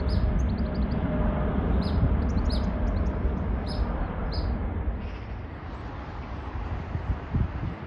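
Twin-engine jet airliner's engines rumbling as it climbs away after takeoff, with small birds chirping. About five seconds in, the rumble gives way to a quieter, more distant jet engine roar.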